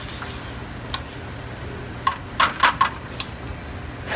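Metal spoon knocking and scraping against a stainless steel pot while stirring a thick breadcrumb stuffing: a few sharp clinks, bunched together about two to three seconds in.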